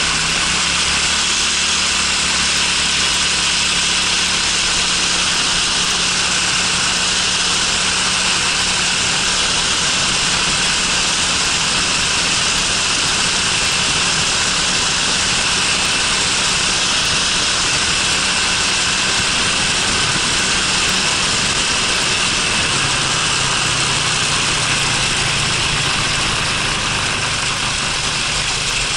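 Honda Freeway 250 scooter's engine running while riding, under a steady rush of wind on the onboard microphone.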